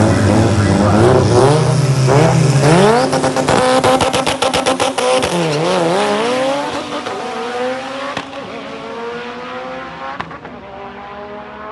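Drag car engine revving hard on the starting line with a quick run of pops, then launching and accelerating down the strip, its pitch climbing through the gears as it fades into the distance.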